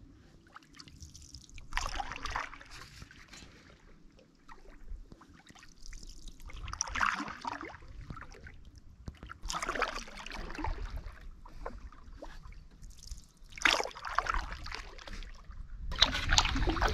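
Water splashing and dripping around a canoe in five short bursts a few seconds apart, over a low steady rumble.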